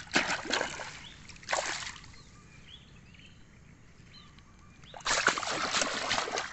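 A large snakehead hooked on a set line thrashing at the water's surface, splashing in bursts: briefly at the start, again about a second and a half in, then a longer spell of splashing from about five seconds in.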